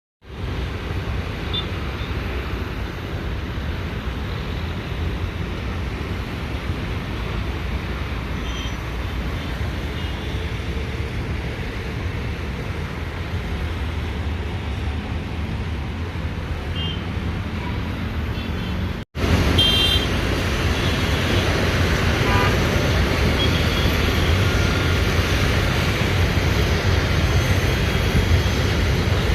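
Steady low rumble of an Airbus A330-300's jet engines as it taxis, heard from outside the aircraft. The sound cuts out for an instant about 19 seconds in and comes back louder.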